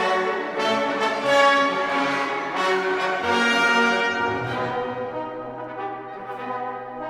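Orchestral background music led by brass, with a low note held through the second half.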